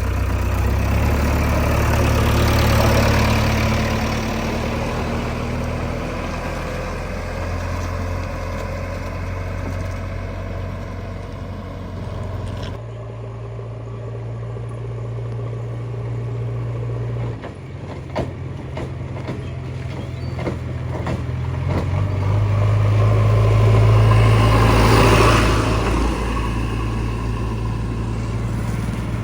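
Heavy diesel engines of a backhoe loader and tractor running steadily, swelling louder twice as the throttle is opened, near the start and again near the end. In the middle comes a run of short knocks and clatters.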